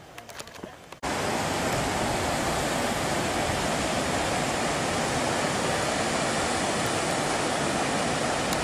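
Waterfall's steady rush of falling water. It starts abruptly about a second in, after a few faint clicks.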